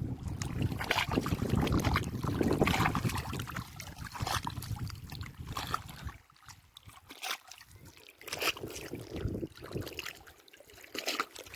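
Water splashing and lapping in irregular small strokes, with wind rumbling on the microphone over the first few seconds.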